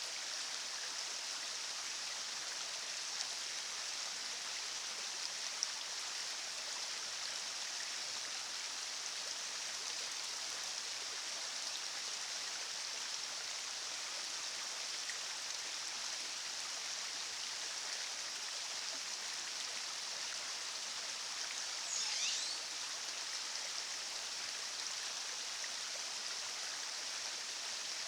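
River water rushing steadily, an even hiss. A brief high, sweeping chirp sounds about two-thirds of the way through.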